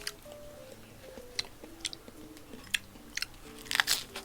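Close-miked chewing and biting of raw seafood, with irregular crisp, wet crunches and a louder cluster of bites near the end. Faint background music plays underneath.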